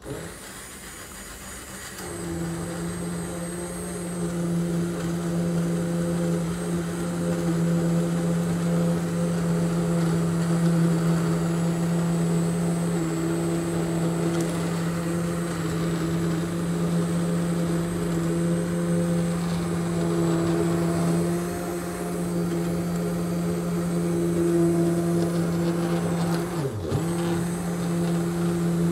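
Bosch hand-held immersion blender running steadily, pureeing boiled vegetables and chicken in a steel pot. It gets louder about two seconds in, and near the end its motor pitch drops briefly and picks back up.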